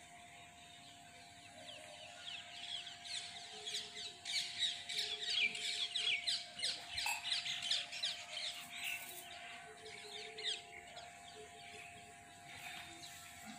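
Many birds chirping in quick, overlapping calls, building up about three seconds in and thinning out after about ten seconds, over a faint steady hum.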